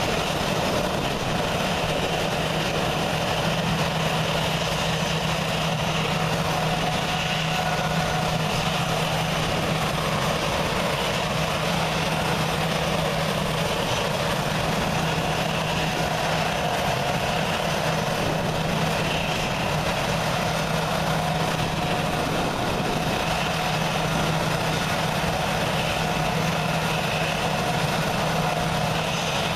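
Airbus A320 turbofan engines running steadily at idle while the airliner taxis slowly and holds, a constant low hum with a higher whine above it.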